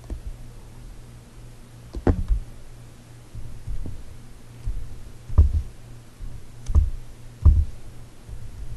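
Computer keyboard keys struck one at a time, a slow, uneven run of about half a dozen clacks, each with a heavy thud, over a steady low hum.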